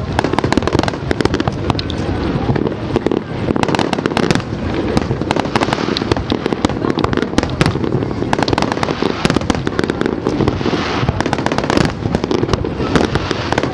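Fireworks display in full barrage: a dense, continuous volley of bangs and crackling bursts, many per second, with no pause.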